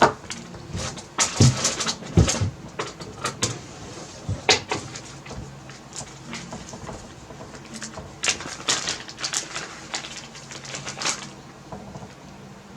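Irregular clicking and clattering of small hard parts being handled, such as screws and metal clips, in bursts about a second in, again briefly, and in a longer run near the end.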